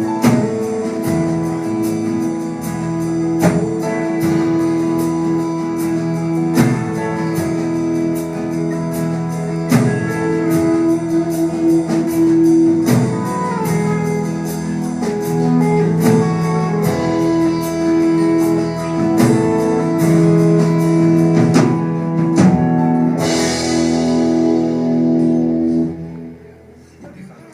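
Instrumental outro of a live country song: guitar chords ringing out over regular strokes, a final crash about 23 seconds in, then the last chord dies away near the end.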